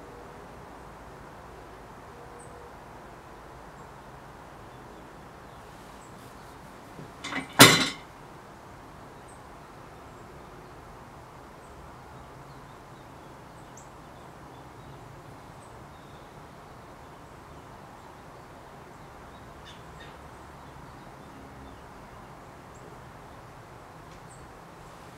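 Faint steady background hiss, broken once by a short, loud knock about seven and a half seconds in, with a couple of smaller knocks just before it.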